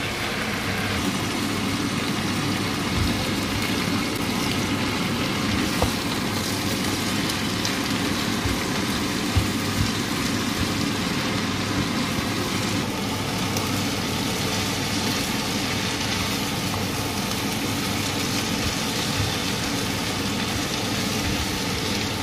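Chunks of meat and sliced onions frying in a non-stick pan: a steady sizzle, with the spoon now and then knocking and scraping against the pan as the onions are stirred to brown.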